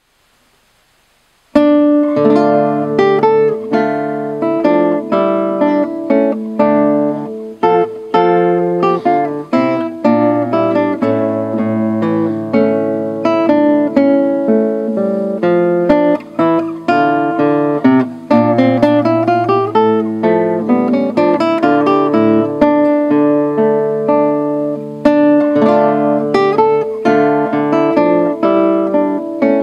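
Solo classical guitar played fingerstyle, a steady flow of plucked notes and chords that begins about a second and a half in.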